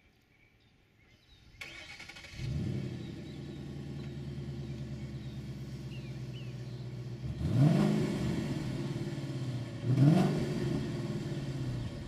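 2012 Ford Mustang Boss 302's 5.0-litre V8, on its stock exhaust with the side-exit pipes still blocked by restrictor plates, starting up and settling into an idle. It is blipped twice, about seven and ten seconds in, each rev rising sharply and dropping back to idle. On this setup it sounds tame.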